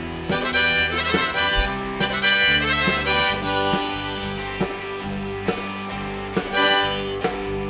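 Live rock-and-roll band playing the instrumental intro of a song, with a sustained, bending lead line over a steady beat.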